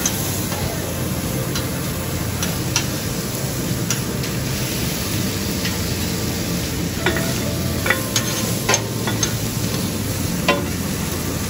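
Diced meat sizzling on a flat-top griddle while metal griddle spatulas scrape and clack against the steel surface. Sharp metal clicks come through the steady sizzle, with a cluster of them in the second half.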